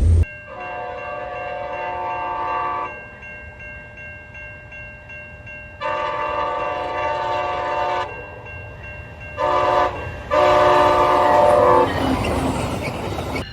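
Locomotive multi-chime air horn sounding the grade-crossing signal: two long blasts, a short one and a final long one. The train's rumble swells near the end.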